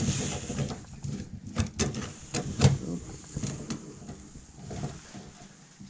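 Scattered light clicks and taps of metal parts being handled as a telescoping car antenna mast is twisted onto its base.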